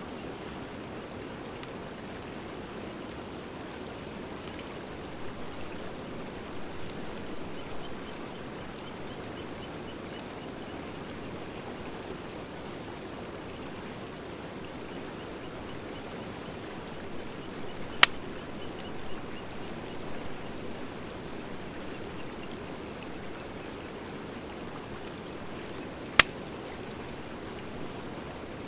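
Wood fire of driftwood and dry hardwood burning in a fire pit: a steady rushing hiss with light scattered crackles, and two sharp, loud pops about eighteen and twenty-six seconds in.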